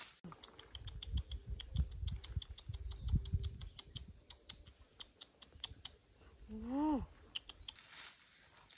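Footsteps through forest undergrowth, crunching dry leaves and twigs in a quick run of sharp clicks over dull low thumps. About seven seconds in comes one short rising-and-falling call.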